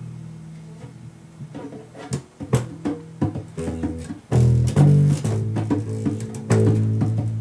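Bass guitar played by hand: low ringing notes with sharp string attacks, getting busier and louder about four seconds in.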